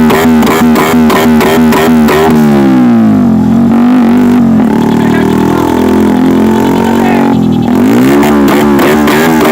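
Bajaj Pulsar 150 single-cylinder engine held at high revs, dropping to a lower speed about two seconds in and revving back up near the end, its exhaust misfiring and popping as it runs.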